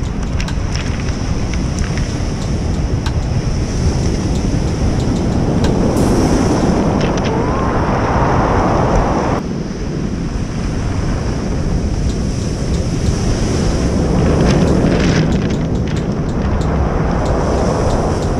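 Surf breaking and washing up a cobble beach, with wind buffeting the microphone. The wash swells louder twice as waves come in, and the upper hiss cuts off suddenly about halfway through.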